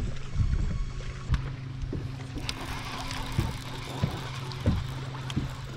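Water lapping against a fishing boat's hull, with a steady low hum, occasional soft knocks and wind on the microphone.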